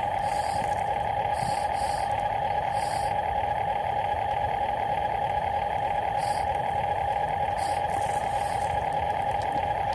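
Electric drive of a radio-controlled construction model running steadily, a constant high-pitched whine, with short hisses now and then.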